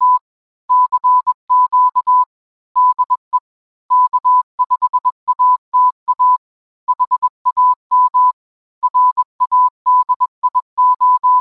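Morse code: a single steady beep near 1 kHz keyed on and off in short dots and longer dashes, sent in groups with brief pauses between them.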